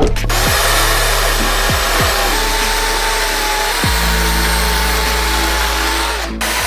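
A power tool running steadily, cutting out briefly near the end, over background music.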